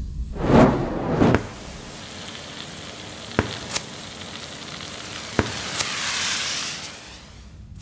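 Crème brûlée sound effects: a short rush of sugar grains poured from a spoon about half a second in, then a kitchen blowtorch hissing as the sugar sizzles and caramelizes. Four sharp crackles come through the middle, and the hiss swells before cutting off suddenly near the end.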